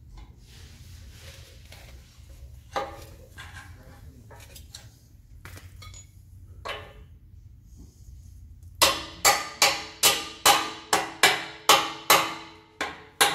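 Scattered metal clinks and knocks as steel parts are handled. About nine seconds in come about a dozen evenly spaced, ringing hammer blows, two to three a second, driving a bolt through a 4-link bar's rod end and its chassis bracket.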